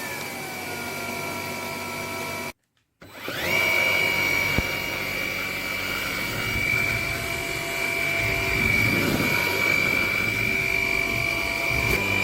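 Dreame Z30 cordless stick vacuum motor running with a high whine. Its pitch falls and settles in the first second, the sound cuts out briefly, and then the whine rises quickly and holds steady and high.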